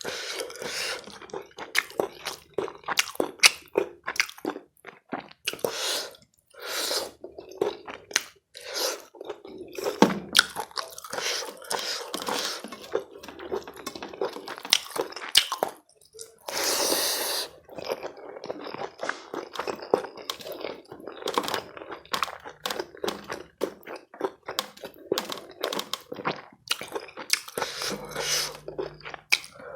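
Close-miked chewing and crunching of food, a rapid irregular run of wet clicks and crunches, with one longer rush of noise about halfway through.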